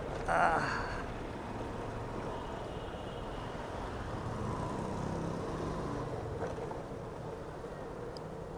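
Motorcycle engine running steadily at low speed with road and street traffic noise. A brief, louder sound with several stacked pitches comes in right at the start.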